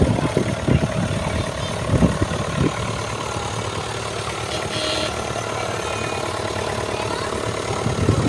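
Tractor engines running at low speed as a procession of tractors drives slowly past: first a small Nuffield tractor close by, then a large Case International tractor approaching. There are uneven low thumps in the first couple of seconds, then a steady engine hum.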